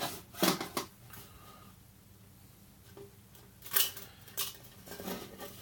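Handling noises of a ukulele string being threaded through the bridge: a few light clicks and rustles, one near the start and a pair about four seconds in.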